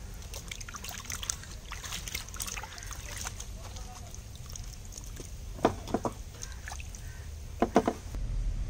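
Vegetables being washed by hand in a metal bowl of water: small splashes, drips and sloshing as broccoli heads and bell peppers are rubbed and turned. A few short, louder sounds stand out about two-thirds of the way in and again near the end.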